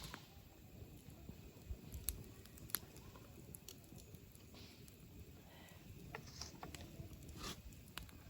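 Wood campfire crackling faintly, with scattered sharp pops and snaps at irregular moments.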